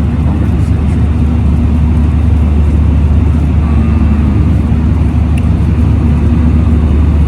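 Airliner cabin noise in flight: a loud, steady, deep drone of jet engines and rushing air.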